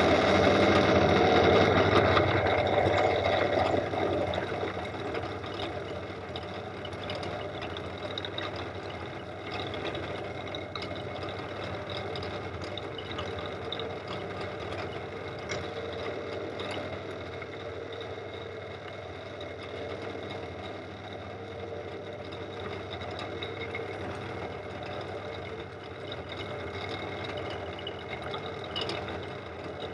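Pillar drill running with a milling cutter plunging into a steel shaft to cut a Woodruff key slot: a steady motor hum with the whine and scratchy chatter of the cutter in the metal. It is loudest for the first few seconds, then settles to a steady run.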